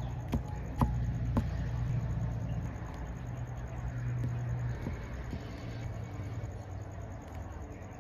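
Knife cutting tomatoes against a wooden chopping block: four sharp knocks in the first second and a half, the third the loudest, then a few faint taps. Underneath, a low steady rumble that fades out about five seconds in.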